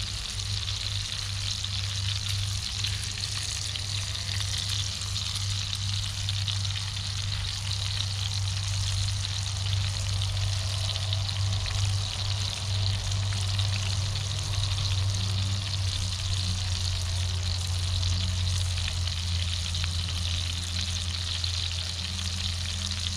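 Steak sizzling steadily in a cast iron skillet over a wood fire, with a steady low rumble underneath.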